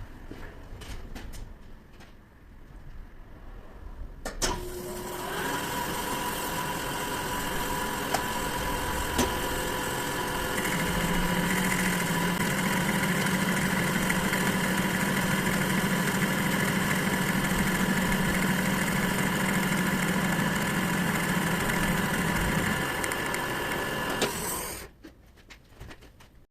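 Metal lathe starting up a few seconds in and running steadily with a whine of several even tones. A lower hum joins for about twelve seconds in the middle, and the machine stops near the end.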